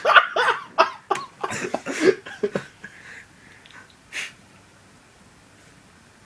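A person's short, breathy, wordless vocal bursts, closely packed for about two and a half seconds, one more brief burst about four seconds in, then only low room noise.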